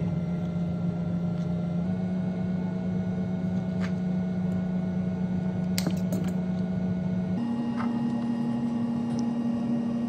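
Steady hum of a small electric fan motor, its pitch stepping up a little about seven seconds in, with a few light clicks around the middle.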